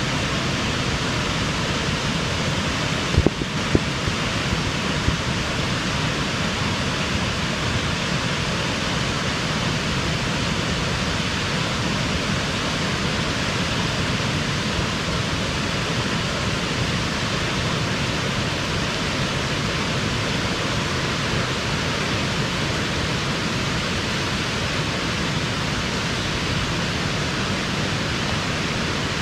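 Steady, loud rushing of floodwater released through the Futatsuno Dam's gates in a flood discharge of about 1,000 tonnes.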